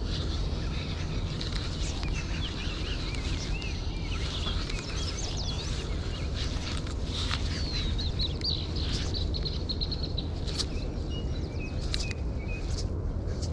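Small birds chirping and trilling, over a steady low rumble of wind on the microphone, with a few sharp clicks near the end.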